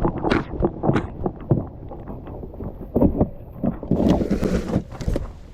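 Irregular knocks and bumps from a kayak being moved and handled, with a short rush of hiss about four seconds in.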